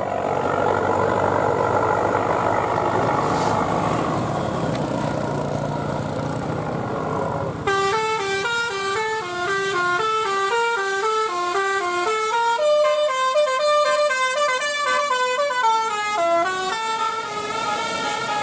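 Bus engine noise for the first several seconds, then, about eight seconds in, a telolet multi-tone musical bus horn starts playing a quick stepping melody of horn tones that carries on to the end.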